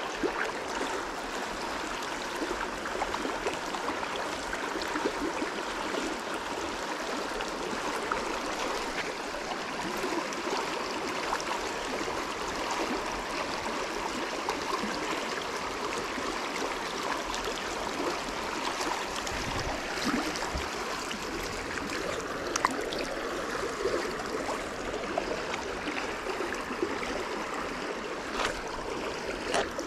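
Stream water running steadily, an even rush with a few small clicks in the second half.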